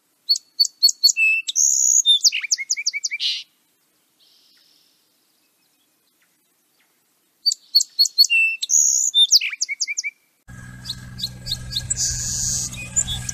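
Song sparrow singing: two song phrases of sharp introductory notes running into buzzes and a trill, a few seconds apart, clean against silence. About ten seconds in, a noisier recording of a song sparrow takes over, its notes over a steady low hum of city background noise.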